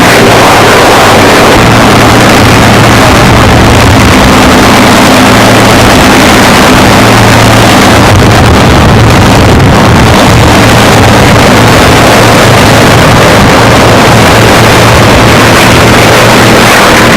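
Large piston aircraft engine running steadily at close range, very loud, holding a nearly constant pitch.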